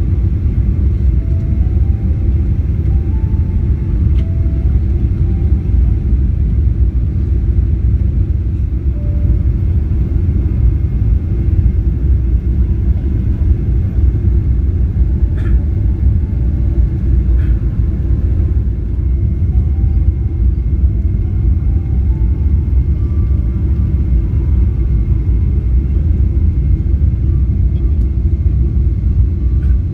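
Boeing 777-300 cabin noise on final approach: the steady, loud low rumble of the engines and the airflow, heard from inside the cabin at a window seat.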